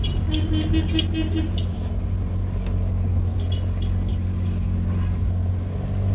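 A car engine running steadily while driving, heard from inside the cabin as a low, even hum that gets louder near the end. In the first second and a half there is a short run of rapid, high clicks.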